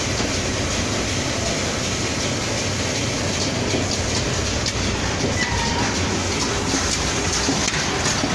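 Automatic cartoning machine running, packing glazed curd snacks one per cardboard carton: a steady mechanical clatter of its conveyor and carton mechanisms, with scattered light clicks.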